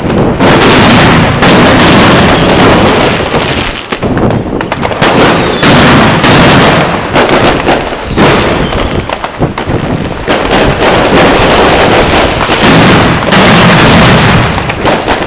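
A homemade firework mat of chained firecrackers and salutes going off: loud, near-continuous overlapping bangs and cracks, with hardly a gap between them.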